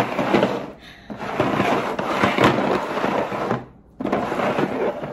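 Bowls being spun and slid around on a tabletop, a dense rattling scrape in three stretches with brief pauses about a second in and just before four seconds in.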